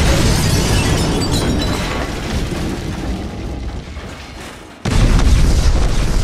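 Cinematic explosion sound effects: a deep rumbling boom fading slowly, then a second heavy boom hitting suddenly about five seconds in as the planet bursts apart.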